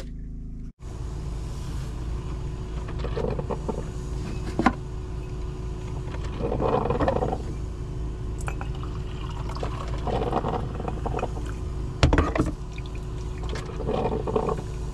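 Drip coffee maker and its glass carafe: coffee gurgles and is poured into a mug in several spells, with two sharp clunks as the carafe is handled, over a steady low hum.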